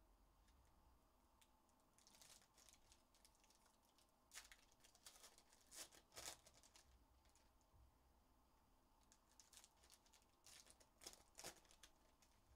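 Faint crinkling and tearing of foil Panini Prizm basketball card pack wrappers as packs are ripped open and the cards handled, coming in irregular clusters of sharp crackles: about 2 seconds in, from about 4 to 7 seconds, and again from about 9.5 to 12 seconds.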